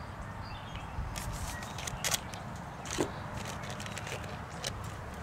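A few sharp clicks and crinkles as a plastic food packet and small cooking tools are handled, over a steady low background hiss.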